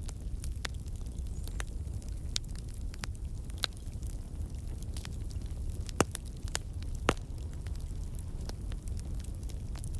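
Campfire burning: a steady low rumble of flames with scattered crackles and wood pops, two sharper pops standing out about six and seven seconds in.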